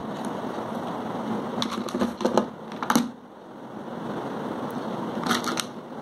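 Small plastic LED bulbs and wire from a string light being handled, giving light clicks and rattles in quick clusters: several about a third of the way in, and a shorter run near the end. A steady background hum runs under them.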